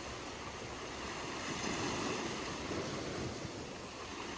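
Small waves breaking and washing over a shore of rounded dark stones: a steady surf hiss that swells slightly about halfway through.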